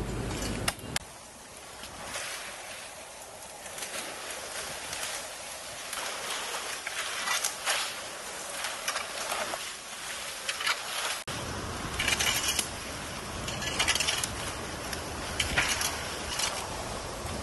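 Storm-felled leafy branches being chopped, dragged and swept: scattered sharp strikes and rustling of leaves. A low wind rumble on the microphone comes in abruptly about eleven seconds in.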